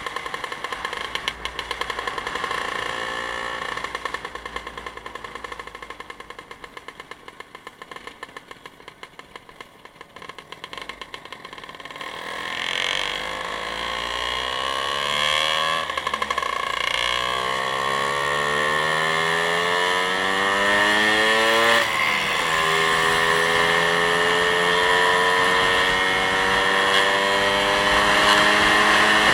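Motorcycle engine running slowly, then pulling away with the revs climbing, dropping suddenly at a gear change about three-quarters through, and then holding a steady cruising note.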